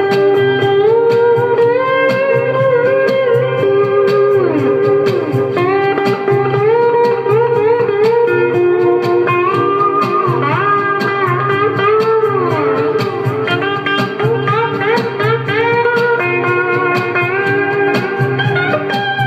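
Background music: a slide guitar playing a bluesy melody of held notes that glide up and down, over a steady beat.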